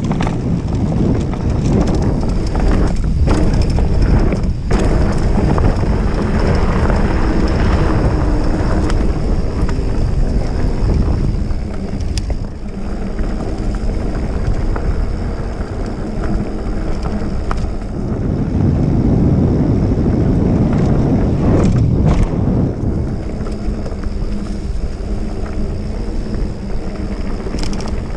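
Mountain bike ridden fast along a dirt trail: wind rushing over the action-camera microphone and tyres rumbling on the ground, with a few sharp knocks and rattles from the bike over bumps.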